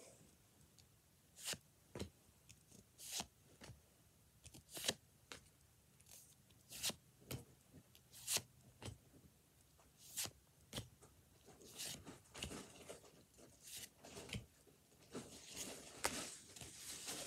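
Pokémon trading cards handled and flipped through by hand, card sliding and snapping against card in irregular sharp clicks, with a denser rustle of cards near the end.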